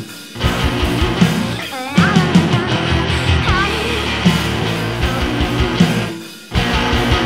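A rock band playing loud and live, with electric bass guitar and drums and a voice heard in places. The band stops dead briefly right at the start and again about six seconds in, then crashes back in each time in a stop-start pattern.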